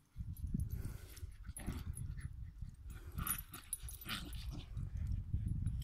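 A puppy and a larger dog play-fighting, with several short dog calls, over a heavy low rumble on the phone's microphone.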